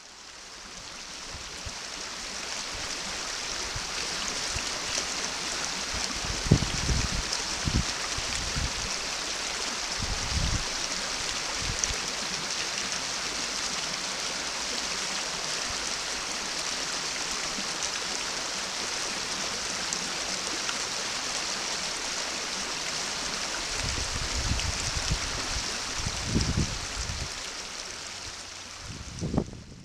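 Shallow, stony stream running, a steady rushing hiss. A few short low thumps break in, several in the first third and a cluster near the end.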